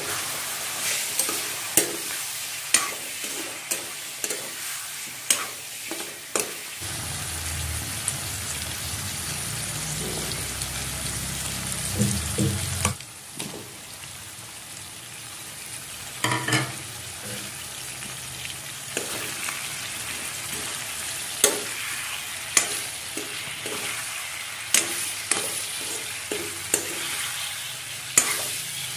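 Pork, potatoes and onions sizzling in an aluminium kadai while a ladle stirs them, with frequent sharp clinks and scrapes of the ladle against the pan. A low rumble joins for several seconds, then the sizzle quietens somewhat about halfway through as tomatoes go into the pan.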